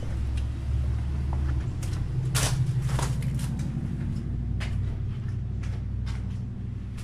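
Footsteps and a door being opened, with a run of short clicks and knocks, the loudest about two and a half to three seconds in, over a steady low rumble.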